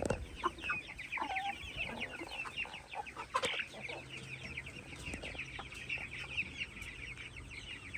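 A flock of backyard chickens clucking and calling over a dense, continuous chatter of short high-pitched calls, with a few louder calls standing out, one about a second and a half in and another about three and a half seconds in.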